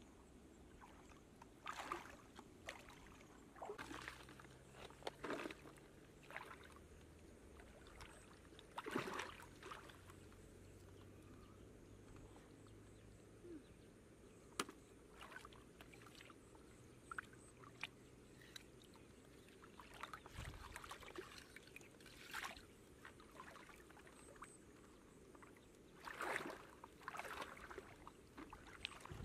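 Faint, scattered splashing and sloshing of shallow pond water as a person wades barefoot and gathers snails into a plastic bucket, with a single sharp click about halfway through.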